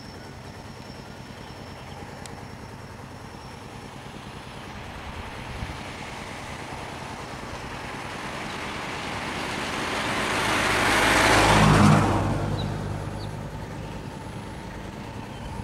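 A road vehicle driving past close by: engine and tyre noise grow steadily louder, peak about twelve seconds in, then fade away, over a steady low traffic hum.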